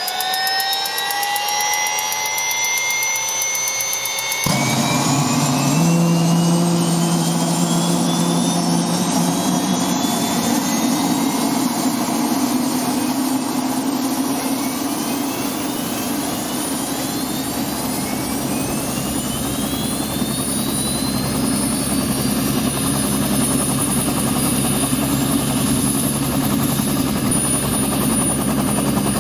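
Aircraft turbine engine starting up: a whine rising in pitch, then about four and a half seconds in a deep, steady running sound comes in beneath it, while further whines keep climbing.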